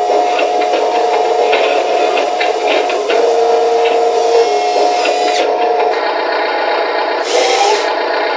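Electric drive motors and gears of an Amewi 22500 1:14 RC wheel loader whining and grinding as the bucket is worked under radio control. The steady whine breaks off about six seconds in, and a short rising whine follows near the end.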